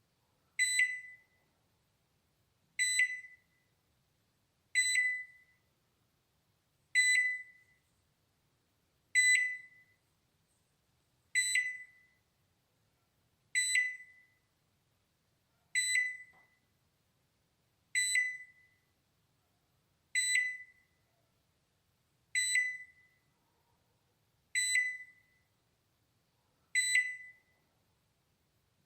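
Balay microwave oven alarm beeping: a single high beep with a sharp start that fades away quickly, repeating evenly about every two seconds, thirteen times.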